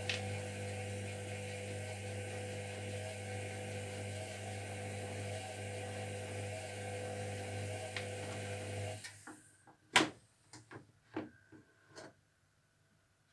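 Zerowatt/Hoover Performa 1000 washing machine taking in water at the start of a wash: a steady hum with rushing water that stops about nine seconds in, followed by several sharp clicks.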